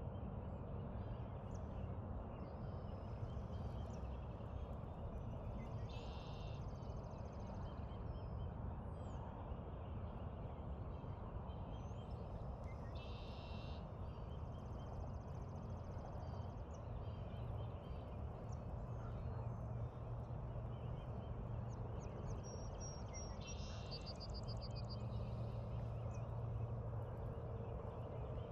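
Steady low outdoor background rumble with three short, high bird calls spread across it.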